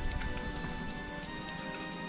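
Background music: held, slowly changing notes with light, evenly spaced ticking.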